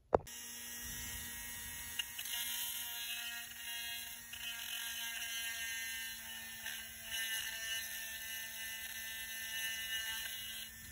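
Small Dremel-style rotary tool running at high speed with a steady high-pitched whine, swelling a little as its bit grinds down the pins inside a plastic sensor connector. A sharp click at the very start.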